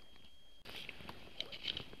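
Close handling sounds: gloved hands rustling among dry leaves and picking up a small plastic-capped bottle, with a few sharp clicks near the end.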